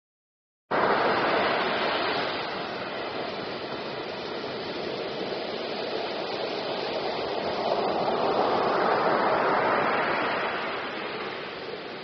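Sea surf: waves breaking and washing up a beach, a steady rush that cuts in abruptly under a second in, eases, then swells again and falls back near the end.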